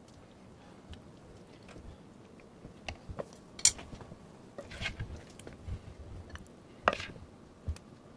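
Serving utensils clinking against a slow cooker crock and a ceramic bowl while steak bites in gravy are ladled onto pasta, with soft wet scooping. There are a few sharp clinks, the loudest about three and a half and seven seconds in.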